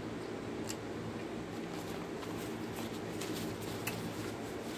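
A person chewing a bite of fried chicken sandwich: faint, soft wet mouth clicks over a steady low hum.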